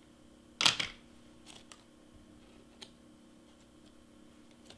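Hands working with a hot glue gun and cardstock flowers on a cutting mat: one sharp clack a little over half a second in, then a few faint clicks and ticks as pieces are pressed into place.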